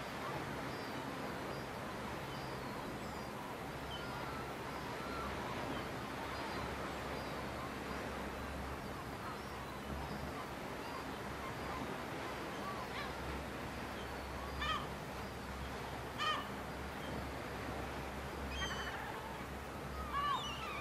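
Outdoor ambience of a steady hiss, with faint high chirps. From about two-thirds of the way through, a few short, harsh bird calls come in, bunched together near the end.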